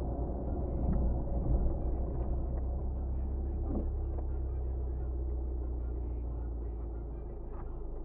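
Car being driven: a steady low rumble of engine and road noise that eases a little near the end, with a few faint knocks.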